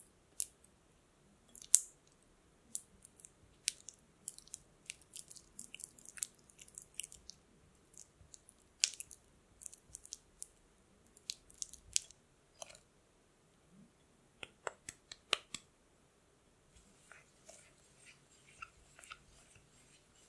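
Red silicone spatula pressing and smearing firm cubes of unsalted butter in a glass bowl: irregular clicks, taps and soft squishes against the glass. Near the end the sound turns to a softer, steadier scraping.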